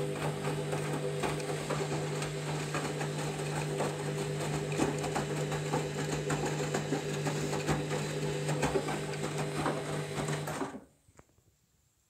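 Candy Grand'O Vita washing machine running through a rinse: a steady motor hum under the splash and slosh of sudsy water as the drum turns, stopping suddenly near the end, followed by a few faint ticks.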